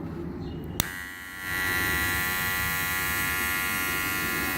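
Wahl 1919 cordless hair clipper switched on with a click about a second in, then running with a steady electric buzz.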